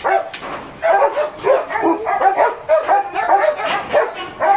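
Kennelled dogs barking and yelping, a rapid, unbroken run of overlapping barks.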